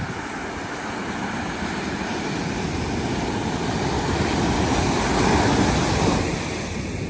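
Sea surf on a beach: a wave swelling to its loudest about five seconds in and then easing off, with wind rumbling on the microphone.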